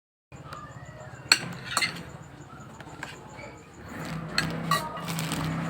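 Several sharp clinks and taps of small hard objects being handled, over a steady low hum.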